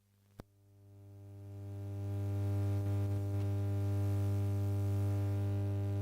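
Steady, low electrical hum with a buzzy stack of overtones: electromagnetic interference picked up by a homemade Elektrosluch inductor listening circuit. It swells in over the first two seconds, with a sharp click just under half a second in.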